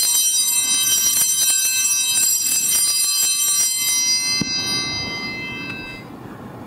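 Altar bells (Sanctus bells) shaken at the elevation of the consecrated host: a bright jingling ring for about four seconds that then dies away over the next two.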